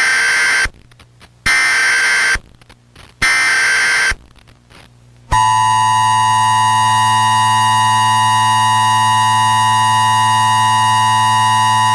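Emergency Alert System tones. First come three short screeching bursts of SAME header data, each under a second and separated by short gaps. About five seconds in, the harsh two-tone EAS attention signal (853 and 960 Hz together) starts and holds steady without a break.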